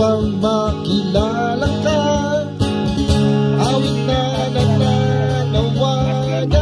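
Acoustic guitar strummed in a song, with held bass notes underneath and a melody line moving above it.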